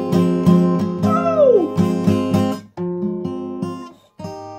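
Acoustic guitar strumming chords in a steady rhythm, with a note bending down in pitch about a second in. Near the end the chords are cut short and restarted twice.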